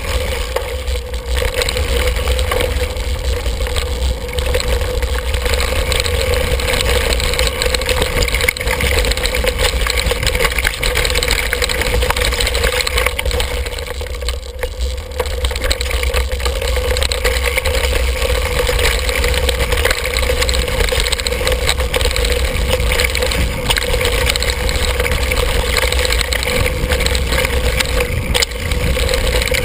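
Mountain bike riding fast down a dirt forest trail, heard from a camera clamped to the handlebars: a steady low rumble with rattle and tyre noise, and a few sharp knocks from bumps in the trail.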